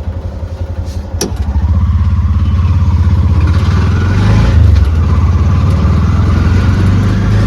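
Auto rickshaw's small engine chugging fast at idle, then revving up about one and a half seconds in as it pulls away and running on loud and steady. A single sharp click about a second in.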